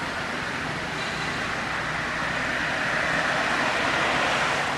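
Road traffic noise: a steady rush of a passing vehicle that grows louder in the second half.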